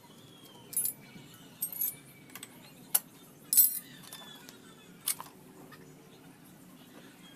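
About half a dozen short, sharp metallic clinks and rattles from a Honda XRM 125's rear wheel parts as they are handled and the wheel is turned by hand. The loudest comes about three and a half seconds in.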